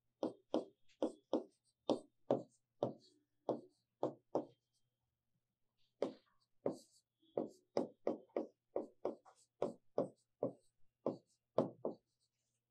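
Chalk tapping and knocking against a blackboard while writing: a quick run of short, sharp taps, about two to three a second, with a pause of about a second and a half near the middle.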